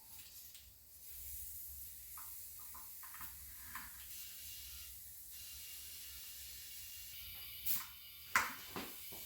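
Steady hiss of compressed air from an air hose inflating a flat car tire, starting about a second in, with a few light clicks and two sharper knocks near the end.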